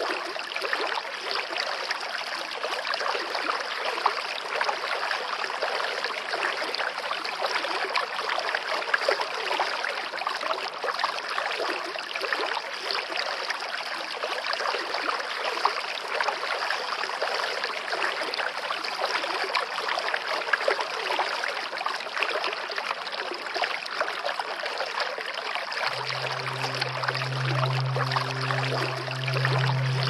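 Steady running-water noise, like a babbling stream. Low, sustained music notes come in near the end.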